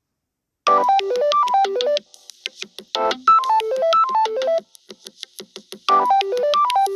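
Samsung Galaxy A30 ringtone: a quick phrase of bright keyboard-like notes stepping down and back up, repeated with a new phrase starting about every two and a half seconds. It begins after about half a second of silence.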